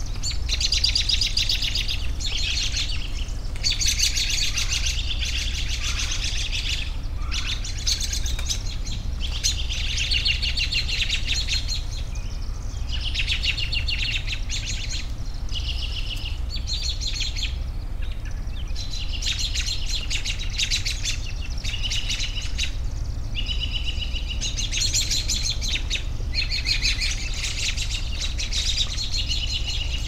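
Songbirds singing in phrases of quick, rapidly repeated notes, each phrase lasting a second or two with short pauses between, over a steady low rumble.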